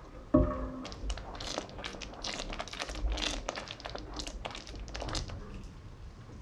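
A spatula knocks against a steel pot with a brief ring, then thick, simmering yellow split pea dhal is stirred, giving an irregular run of wet plops and squelches for about five seconds that thins out near the end.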